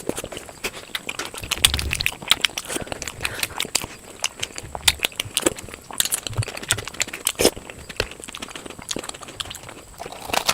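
Close-miked mouth sounds of someone eating puri with potato curry: an irregular run of wet smacks, clicks and chewing sounds.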